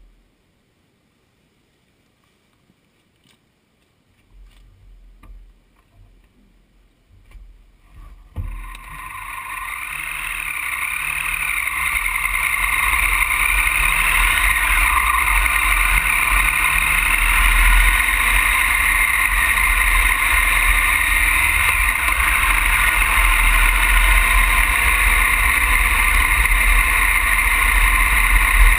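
Triumph Tiger Explorer adventure motorcycle being ridden, heard from a camera on the front fork: a steady mix of engine rumble and riding noise. It comes in about eight seconds in after near silence and a few faint knocks, grows louder for a few seconds, then holds steady.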